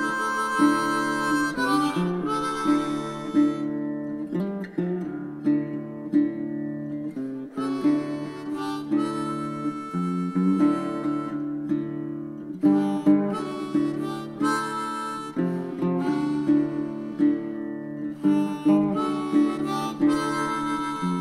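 Background music: harmonica over acoustic guitar in a relaxed, bluesy tune.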